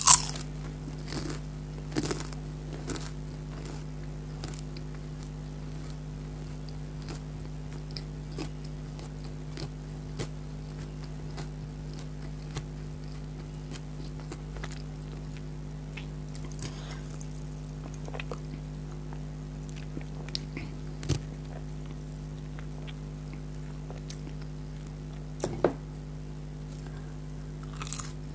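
Close-miked eating: a person biting and chewing food, with scattered sharp crunches and clicks over a steady low hum.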